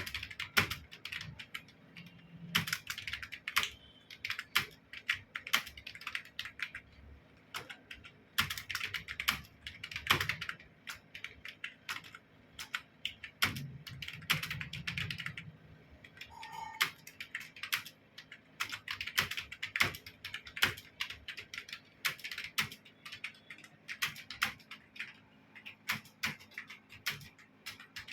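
Computer keyboard being typed on quickly during a timed typing test: fast, uneven runs of key clicks with a few louder single strokes and short pauses between runs.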